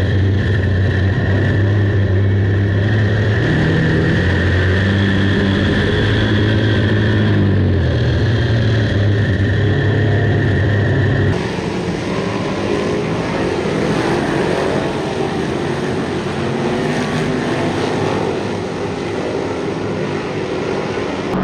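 Big block dirt modified's V8 engine heard from inside the car, running at steady, fairly low revs with a few small shifts in pitch. About 11 seconds in it cuts abruptly to a rougher, noisier rumble of race car engines heard from the grandstand.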